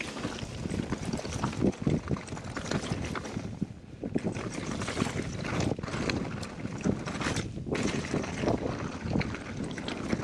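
Mountain bike rolling over a rocky dirt track, tyres crunching on gravel and the bike rattling over the stones, with wind rushing across the camera microphone. The rattle eases briefly about four seconds in.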